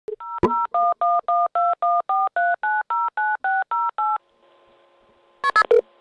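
Telephone keypad touch tones: a quick run of about sixteen two-note dialing beeps, some five a second. They stop a little after four seconds, leaving a faint steady line hum, and three short loud clicks sound near the end.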